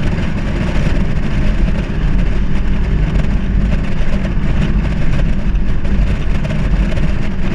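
Holden VR's engine and exhaust running with a steady low drone, the exhaust sound the owner presents as a problem.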